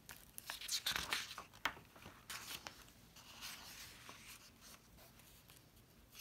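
Pages of a picture book being turned and smoothed flat by hand: faint paper rustles and rubbing in a series of short bursts.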